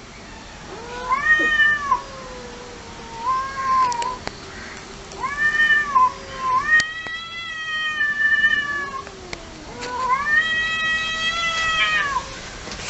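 Cats caterwauling in a fight standoff: about five long, drawn-out yowls that rise and fall in pitch, with a lower wavering growl underneath through the first half.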